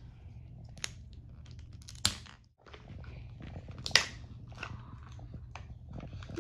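Plastic Mini Brands capsule ball being unwrapped and pulled open by hand: rustling and crinkling of its wrapper and a few sharp plastic clicks, the loudest about two and four seconds in. A low steady hum runs underneath.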